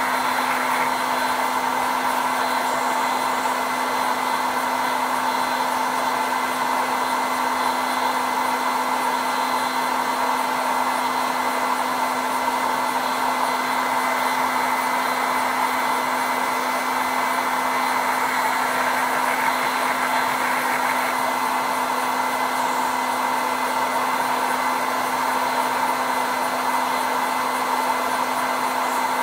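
Small CNC mill running steadily as its end mill cuts the teeth of a metal sprocket: an even whir with a constant hum and no breaks.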